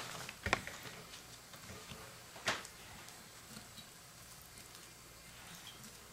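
Knife cutting and scraping along a raw fish on a newspaper-covered cutting board: faint handling sounds with two sharp taps, about half a second in and, louder, about two and a half seconds in.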